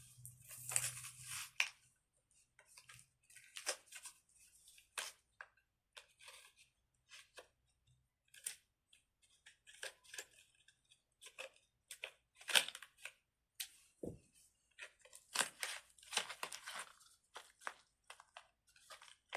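Hands handling a squishy fidget toy: irregular short rustles, crinkles and taps, a few louder ones about a second in, near the middle and again a few seconds before the end.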